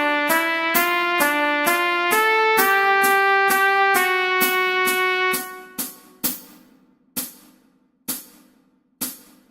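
A melody played as a run of held notes, changing pitch about twice a second, that stops about five seconds in. Then single sharp clicks follow about once a second, like a metronome count.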